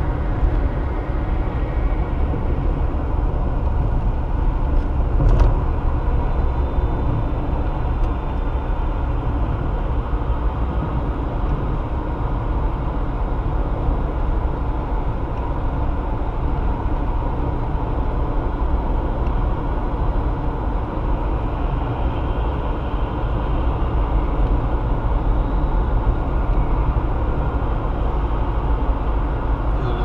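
Steady road and engine noise inside a moving car, mostly a low rumble, with one brief knock about five seconds in.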